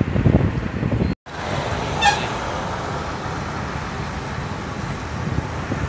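Wind buffeting the microphone from a moving car, then, after a brief dropout, steady road and tyre noise. A short horn toot sounds about two seconds in.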